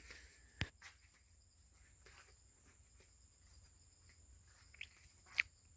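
Quiet outdoor ambience of footsteps and small scuffs on a building site, with two sharp clicks, one about half a second in and a louder one near the end. A faint steady high tone runs underneath.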